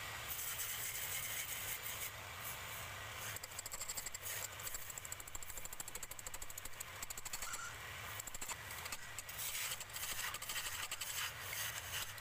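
Wood lathe running with a steady low hum while a hand-held turning tool cuts across the face of a large spinning wooden disc, giving a rough scraping sound with rapid fine ticks that comes and goes as the tool is pressed in.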